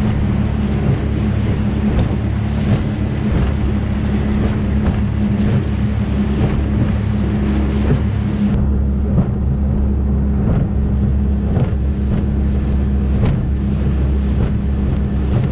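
Motorboat running steadily across the water: a constant low engine drone with wind buffeting the microphone and water rushing past the hull. The rushing hiss thins out in its upper part about halfway through while the engine drone carries on.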